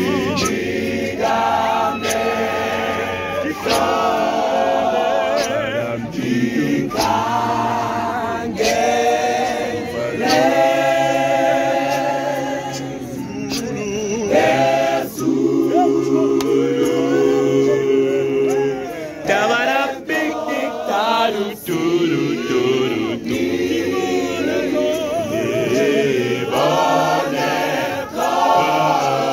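A church choir singing a gospel song together in harmony, unaccompanied by instruments, with held notes between phrases.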